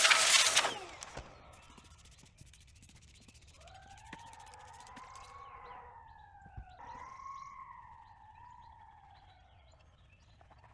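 A loud hissing spray cuts off just under a second in. Then a faint wailing siren slowly rises and falls, twice over about six seconds.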